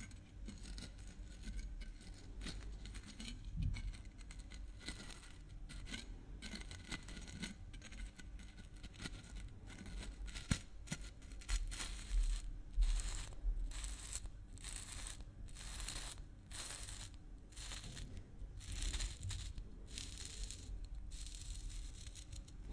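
Fingertips and nails scratching and working the red plastic cap of a maple syrup bottle, making a run of short, scratchy strokes. The strokes come thicker and louder after the first few seconds.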